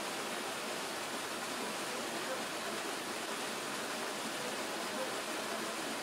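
Steady, even rush of running water from a small stream.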